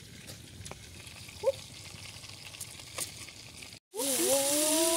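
Quiet at first with a few light taps and a short chirp; after a cut about four seconds in, a whole fish frying in hot oil in a wok, a loud steady sizzle, with a long drawn-out voice-like tone over it.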